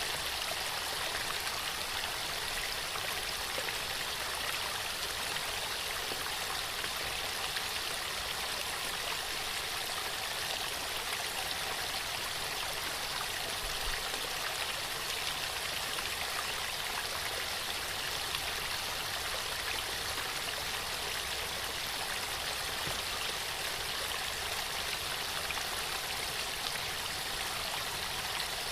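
Waterfall with water rushing and splashing steadily, a continuous even hiss.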